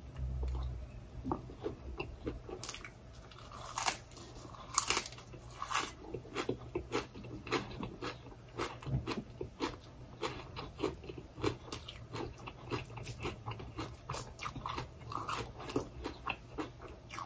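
Close-up chewing of a mouthful of raw leafy greens with Isaan eggplant dip: soft crunches and wet mouth clicks, several a second, with the loudest crunch about five seconds in.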